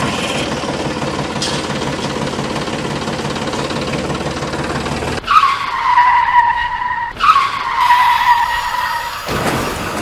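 Steady, dense mechanical rattle, then about five seconds in two long whistle blasts from a toy steam locomotive, each sliding slightly down in pitch.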